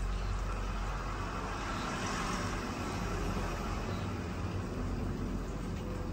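Steady outdoor background noise: a low rumble with a hiss above it that holds even throughout, with no distinct events.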